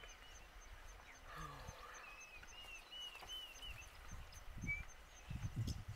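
Quiet bush ambience: a bird repeats short, arched whistled notes, over a faint fast high ticking. Low rumbling thumps come in near the end.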